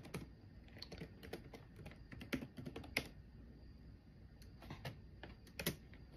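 Faint, irregular typing on a computer keyboard: scattered keystrokes, a few of them sharper, as a date is looked up.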